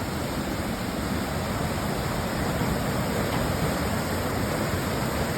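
Steady rushing of falling water from a waterfall, an even roar with no breaks.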